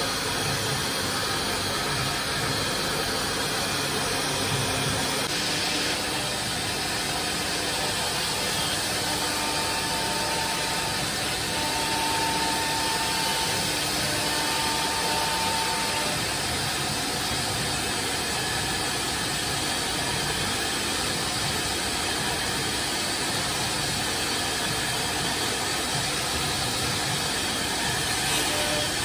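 Chencan M1325AG CNC router running steadily, its spindle motor whirring as the bit routes grooves into a wooden board, heard as an even hissing machine noise with a few brief higher tones coming and going about a third of the way in.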